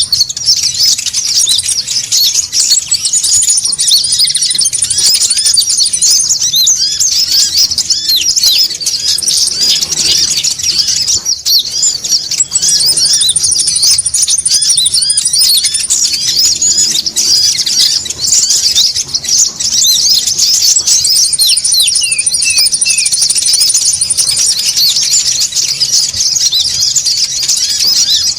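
A dense, noisy chorus of many small konin birds chirping high-pitched and overlapping, played as a bird-trapping lure call. A thin, buzzy, very high trill cuts in for a second or two about every ten seconds.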